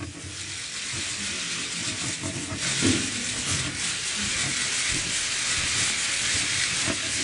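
Dense, continuous clatter of many press camera shutters firing at once. It builds over the first couple of seconds and then holds steady.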